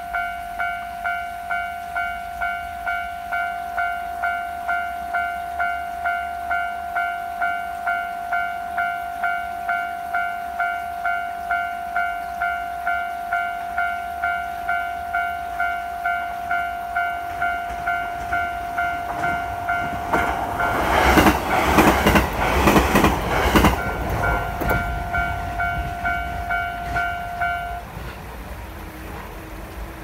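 Japanese railway level-crossing alarm bell ringing steadily, about one and a third dings a second, stopping shortly before the end. About twenty seconds in, a train passes over the crossing with loud rumbling and wheels clacking over the rail joints for a few seconds.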